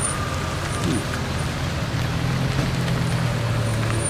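Car engines running as a line of cars drives slowly past one after another, a steady low hum that swells a little about halfway through as a car nears.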